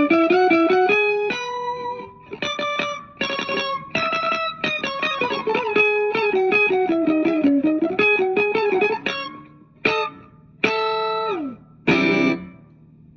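Electric guitar played through an A/DA Pitchtraq pitch-shifting effects unit: quick runs of picked notes with bends. About 11 seconds in, a held note slides steadily down in pitch. The playing stops near the end, leaving a low amplifier hum.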